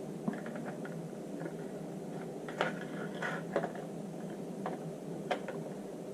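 A few scattered light clicks and taps as a Smith & Wesson Sigma SW9F pistol's parts are handled and fitted together during reassembly, over a steady low hiss.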